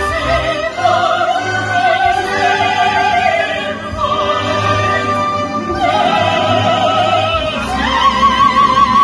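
Soprano and tenor singing an operetta duet with orchestral accompaniment, live in a theatre. Sung lines with vibrato throughout, and about eight seconds in a high note is taken and held.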